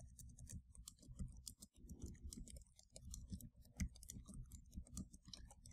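Faint computer keyboard typing: a run of quick, irregular keystrokes.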